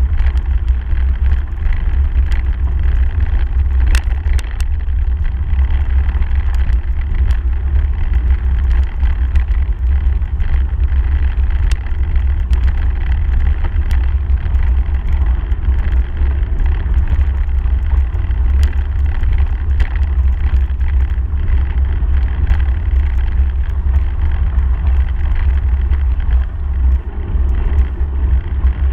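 Bicycle riding along a gravel path, heard from a handlebar camera: a steady low rumble of wind and vibration on the microphone, with tyre noise on the gravel and many scattered sharp clicks and rattles.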